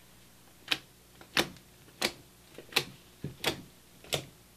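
Fluffy slime being pressed and poked with the fingertips for a click test, giving sharp clicking pops about every two-thirds of a second, with a few fainter clicks between them.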